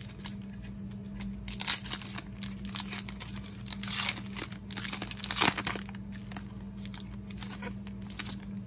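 Foil trading-card pack wrapper being torn open and crinkled by hand as the cards are drawn out: a run of irregular crackly rustles, the loudest about two seconds and five and a half seconds in.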